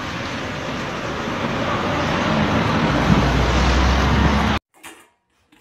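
Street traffic noise: a steady rush that grows louder with a deepening rumble, then cuts off suddenly about four and a half seconds in.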